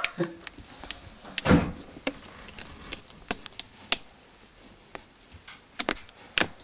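Irregular light clicks and knocks, with a duller thump about one and a half seconds in and a few sharper clicks near the end.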